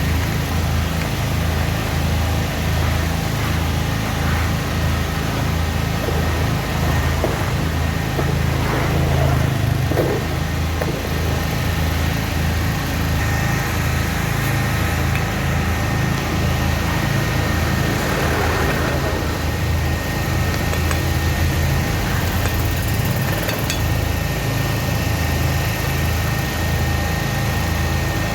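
An engine running steadily at a constant speed, with a low pulsing hum throughout and a few faint knocks.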